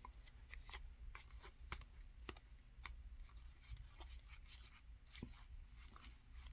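Faint, irregular soft ticks and slides of trading cards being flicked one by one through a hand-held stack, over a low room hum.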